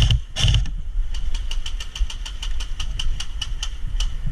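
Two heavy thumps, then airsoft gunfire: a fast, even string of sharp clicking shots, about six a second.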